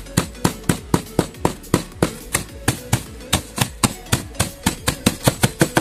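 Claw hammer pounding dried eggshells in a plastic bag against a concrete floor, quick even blows about five a second, crushing the shells into small grit.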